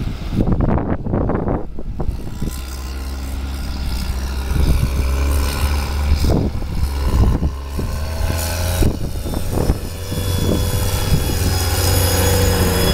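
Diesel engines of farm tractors hauling trailers, a steady low drone that grows louder near the end as a large tractor passes close by. Gusts of wind buffet the microphone throughout.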